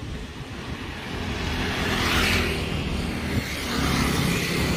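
Small motor scooter approaching and passing close by without slowing, its engine and tyre noise growing louder as it nears, over light road traffic.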